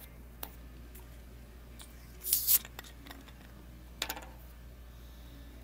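Plastic bottle of carbonated peach Coke being unscrewed: a few small clicks, then a short hiss of escaping gas about two seconds in, and more small clicks and knocks about four seconds in.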